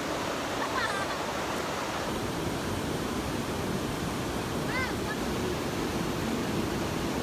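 Steady rushing of a waterfall, an even wash of water noise, with two faint short calls about a second in and near five seconds.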